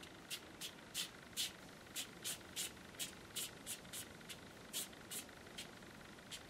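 Paintbrush dragged across watercolour paper in a quick run of short swishing strokes, two or three a second, roughly dry-brushing in a foreground.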